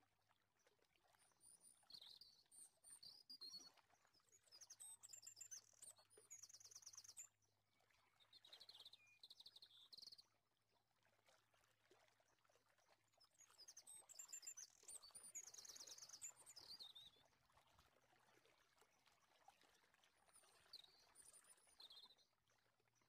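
Faint bird chirps and trills in several short bursts a few seconds apart, over a low steady hum.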